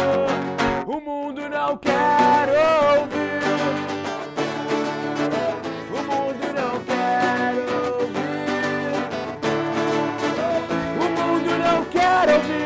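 A band playing a song with guitar to the fore; a sustained melody line wavers in pitch over the chords.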